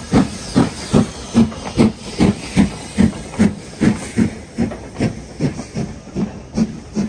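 LMS Stanier Black Five two-cylinder 4-6-0 steam locomotive working a train away at low speed: steady exhaust chuffs, about two and a half a second, over the hiss of steam escaping around its cylinders, the beats growing a little fainter near the end as it draws away.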